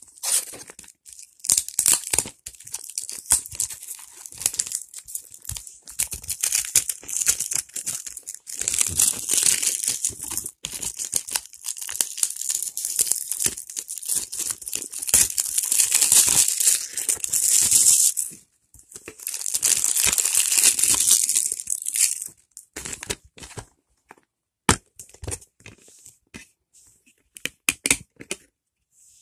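Plastic wrapping on a DVD case being torn and crinkled in long stretches. This is followed by a run of sharp clicks and snaps as the plastic case is opened and the disc is worked off its centre hub.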